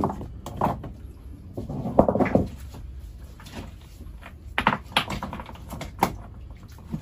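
Stones knocking and clacking against one another as loose rocks are shifted by hand. The sound is a scatter of sharp, separate knocks, bunched together about four and a half to five seconds in, with another near the end.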